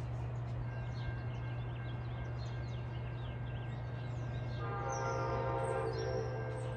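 Horn of an approaching Amtrak Blue Water passenger train, a Siemens Charger locomotive, sounding in the distance. A faint steady note comes first, then a louder chord-like blast of about a second and a half near the end. Birds chirp throughout.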